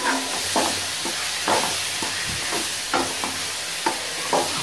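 Metal ladle scraping and knocking against an aluminium kadai, about twice a second, as onions and tomatoes fry in oil with a steady sizzle underneath.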